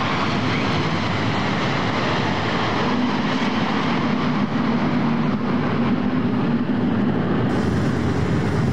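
Steady jet noise of a formation of eight F-16 Fighting Falcon fighters flying low overhead.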